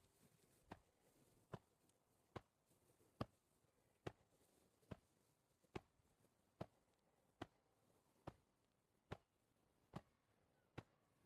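Faint, evenly paced pats of hands slapping against the body, a little more than one a second, as the arms swing loosely from a turning torso in the qigong exercise 'beating the heavenly drum'.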